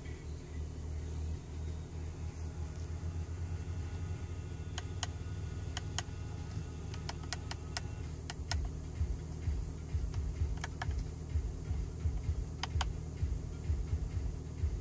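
Audi A6 3.0 TDI V6 diesel idling, heard from inside the cabin as a steady low rumble. From about five seconds in, a run of short sharp clicks from the steering-wheel control buttons as the driver display is scrolled.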